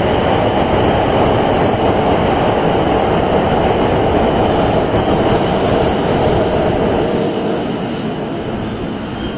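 Tokyo Waterfront Area Rapid Transit 70-000 series electric train pulling out of the station, its cars rolling past with a steady rumble of wheels on rail that fades over the last two seconds as it draws away.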